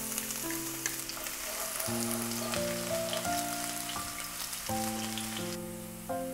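Chopped garlic frying in hot oil in a nonstick pan, a dense sizzle full of small crackles that thins out near the end. Background music with held piano-like notes plays throughout.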